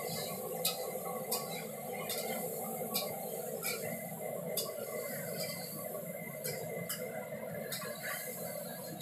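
Sharp light clicks of metal cooking utensils against a pan or steel plate, irregular, roughly one every second, over a steady low hum.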